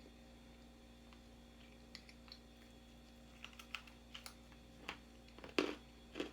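Chewing crisp fried chicken: scattered sharp crunches and crackles that grow more frequent, with a couple of louder crunches near the end. The host takes the hard crust for double fried.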